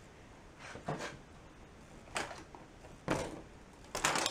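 Four short knocks and clatters of a TV's LCD panel and its frame being handled as the panel is lifted out of the set. The loudest cluster comes near the end.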